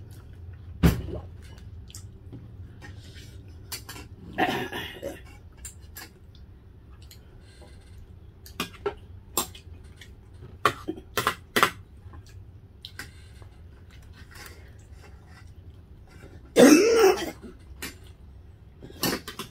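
Spoons and forks clinking now and then against ceramic plates and bowls during a meal, a dozen or so sharp separate clicks. Near the end, a person coughs once.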